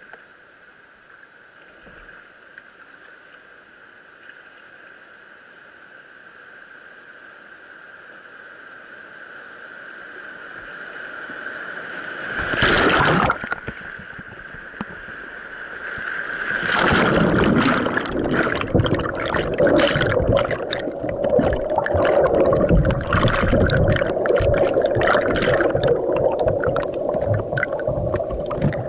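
Rush of a whitewater rapid, growing steadily louder for about twelve seconds as a kayak drifts toward it, then a loud splash as the kayak drops in. From about seventeen seconds, loud churning whitewater pounds over the boat as it capsizes, the sound turning to underwater gurgling and bubbling near the end.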